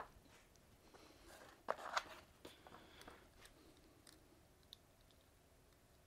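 Faint clicks and ticks of a hand-held ratcheting crimp tool and small metal crimp terminals being handled, with two sharper clicks about two seconds in and scattered light ticks after.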